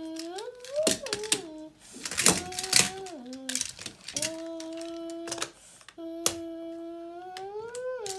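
A child humming long held notes that slide upward at their ends, while plastic magnetic building tiles click and clack together in sharp knocks.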